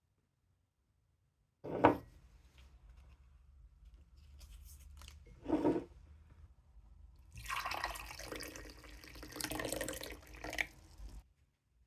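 A sharp knock, a second knock a few seconds later, then water running for about four seconds before it stops abruptly.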